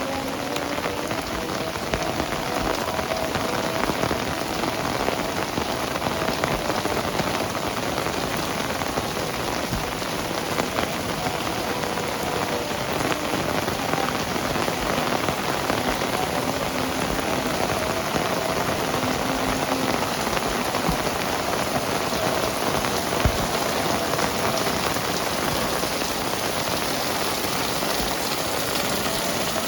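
Heavy rain falling steadily in an even, dense hiss, with a faint hum of steady tones beneath it and a single short knock near the end.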